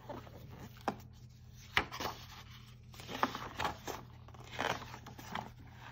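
Hardcover picture book being opened and its pages turned by hand: paper rustling and sliding, with a few sharp clicks from the cover and pages.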